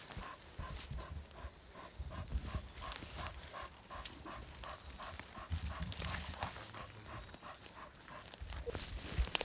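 English springer spaniel panting hard and steadily, about three breaths a second, as it rests after its run.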